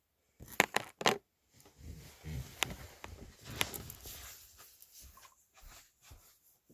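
A quick run of sharp clicks or knocks about half a second in, then a few seconds of rustling and handling noise with scattered ticks that fades toward the end.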